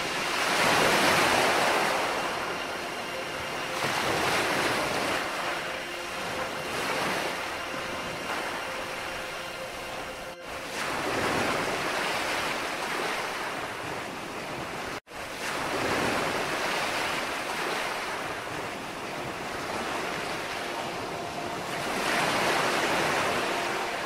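Surf from a laid-in ambience mix: waves wash in and draw back, swelling and fading every few seconds. The sound cuts out for an instant about fifteen seconds in.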